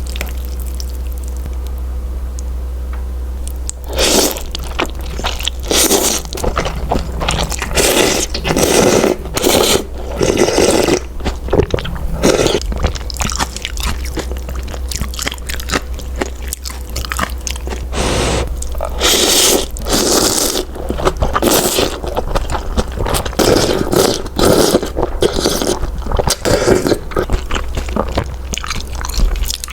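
Eating sounds close to the microphone: irregular bites and chewing of malatang noodles, starting about four seconds in, over a steady low hum.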